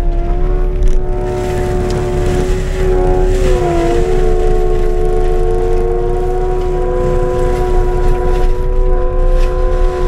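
Skid steer forestry mulcher running under load, heard from inside the cab: a loud, low engine rumble under a steady whine. The whine's pitch sags briefly about three and a half seconds in, then recovers, as the cutting head takes a load of brush.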